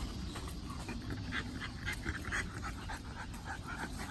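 A dog panting quickly, short breaths at about four a second.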